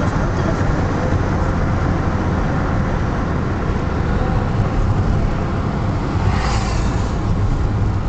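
Steady engine and road rumble heard from inside a moving vehicle's cabin, with a brief hiss that swells and fades about six and a half seconds in.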